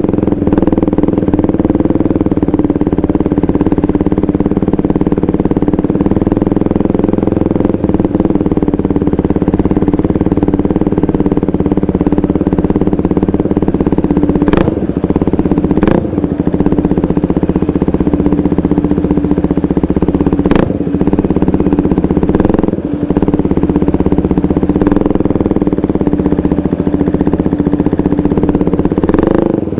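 2015 KTM 390 Duke's single-cylinder engine running at a steady pace through a KO Lightning aftermarket exhaust, with a few brief breaks in the engine note about halfway through and near the end.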